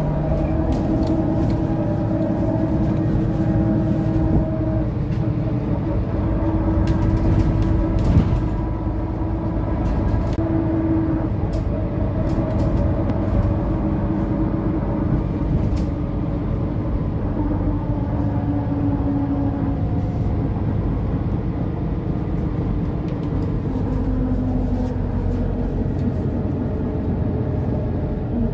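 2011 Mercedes-Benz O530 Citaro Facelift city bus heard from inside the passenger cabin while under way: the diesel engine runs steadily, its note stepping lower and rising again several times, with scattered small clicks and rattles.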